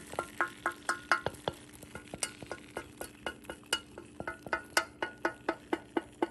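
A utensil stirring in a cooking pot and clinking against it: quick clicks, about four or five a second, over a steady low hum.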